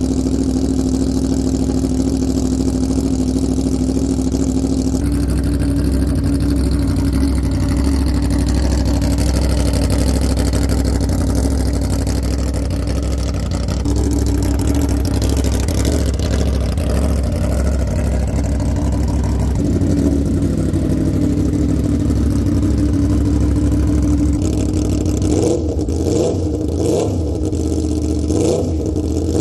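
Aprilia Tuono V4 1100 Factory's V4 engine idling steadily through an SC Project GP22 MotoGP-replica exhaust, its idle pitch stepping up slightly a couple of times. In the last few seconds the throttle is blipped several times in quick succession, each rev rising and falling sharply.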